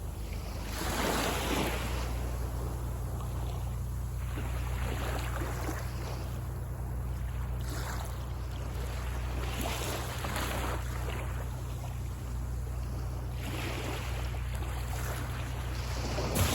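Small waves washing onto a beach, several separate surges over a few seconds each, over a steady low rumble of the sea and wind.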